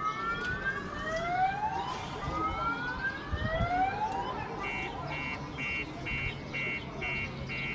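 Car alarm sounding, set off by a man smashing up parked cars: a run of rising siren sweeps, then, after about four and a half seconds, a fast string of short beeps at about two a second.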